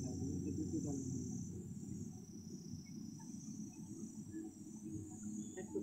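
Insects chirring: a steady, high-pitched chorus over a low rumble.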